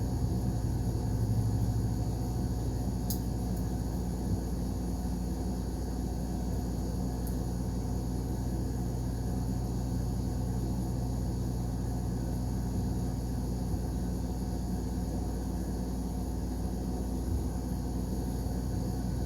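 Steady low mechanical hum of a running machine, with a faint sharp click about three seconds in and a small tick about a second later.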